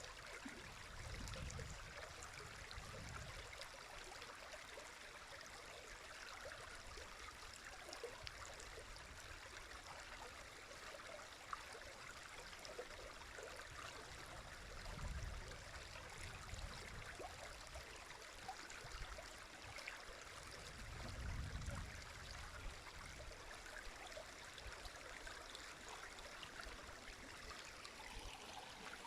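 River water flowing over stones: a steady, faint rush with trickling and gurgling. A few soft low rumbles swell and fade, near the start, around the middle and later on.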